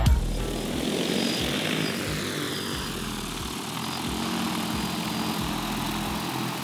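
Large agricultural spray drone's rotors running as it lifts off and climbs away, a steady loud whir whose pitch dips over the first few seconds and then rises again.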